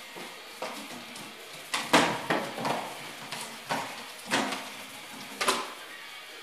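Metal dog bowl clattering as puppies push it around: a string of irregular clanks with brief metallic ringing, the loudest about two seconds in.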